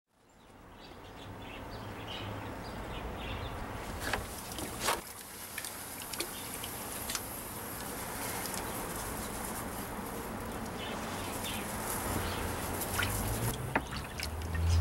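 Birds chirping now and then over a steady outdoor background hiss.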